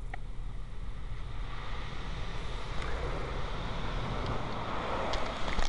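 Ryko SoftGloss Maxx car wash spraying the car during its rain shield sealant pass, heard from inside the cabin: a rushing hiss of spray on the body and glass that builds over the first seconds and drops away sharply at the end, over a steady low rumble.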